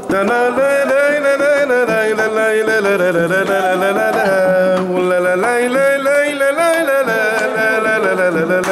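Mezoued, the Tunisian bagpipe, playing an unbroken, ornamented melody over a steady low note, with light percussive taps underneath.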